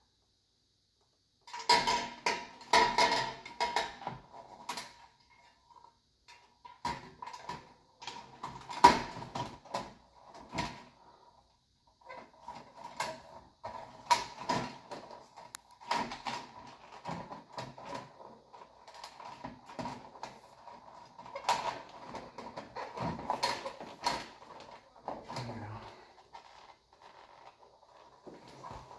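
Sheet-metal ballast cover of a fluorescent ceiling fixture being handled and snapped into place, with irregular metallic clicks, knocks and rattles starting about a second and a half in.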